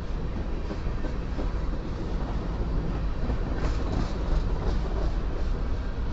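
Covered hopper cars of a freight grain train rolling past: a steady rumble of steel wheels on rail, with a run of clicks from the wheels a little past halfway through.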